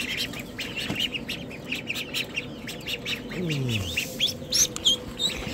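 Ducklings peeping, many short high calls repeating and overlapping throughout.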